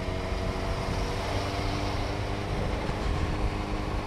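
Motorcycle engine running at a steady pace while riding in traffic, with a constant hum of engine tones under wind and road noise.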